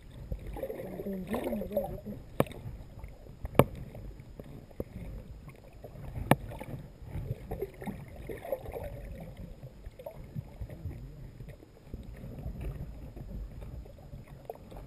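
Muffled sloshing of water around a camera held underwater, with a few sharp clicks or knocks, the loudest about three and a half seconds in.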